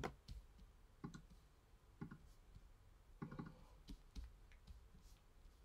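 Faint clicks of a computer mouse and keyboard, a few separate clicks roughly a second apart with a short cluster a little past the middle.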